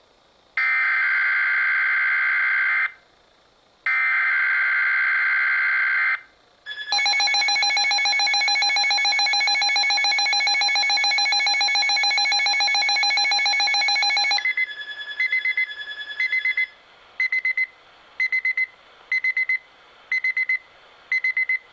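Weather radio alert signal: two bursts of rapid two-tone digital data (SAME header), then a steady warbling alarm tone for about seven seconds, then a string of short beeps about one and a half per second. It marks the start of a significant weather bulletin.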